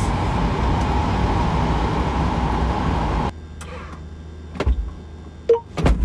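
Rimac Nevera at high speed heard from inside the cabin: a loud, steady rush of wind and tyre noise with a faint electric-motor whine. About three seconds in it cuts off suddenly to a quiet stationary cabin with a low hum and a few sharp clicks.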